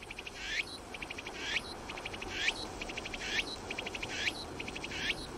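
Cicadas calling: a quick pulsing buzz phrase, each ending in a short sweep, repeated about once a second.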